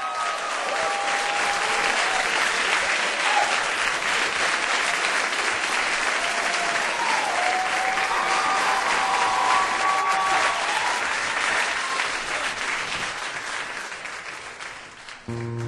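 Audience applauding and cheering, with a few voices calling out over the clapping. The applause dies down near the end as an acoustic guitar starts strumming.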